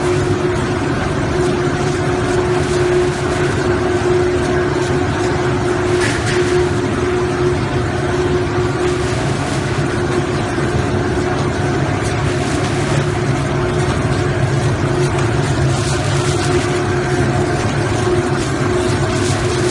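Dried-chili stem-cutting machine line running: a loud, steady machinery drone with a constant hum, with a few brief rattles now and then.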